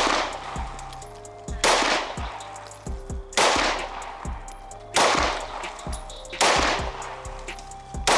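A semi-automatic pistol being fired in slow, deliberate single shots: about six shots, one roughly every second and a half, each ringing out briefly before the next.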